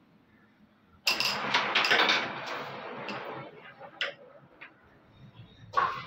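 A carrom striker flicked into the coins: a sharp clack about a second in, then coins clicking against each other and sliding across the board for about two seconds. A few lighter clicks follow, and another sharp click comes near the end.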